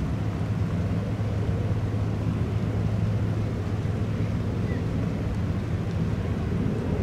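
Steady low hum and rumble of the cruise ship Mein Schiff 1's engines while it is under way.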